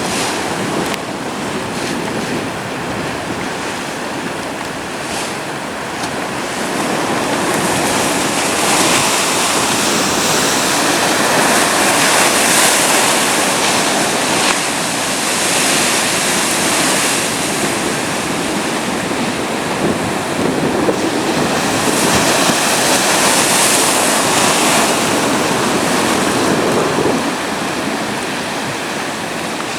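Atlantic surf breaking on the beach: a dense, steady wash of wave noise that swells louder for a few seconds at a time as sets of waves come in.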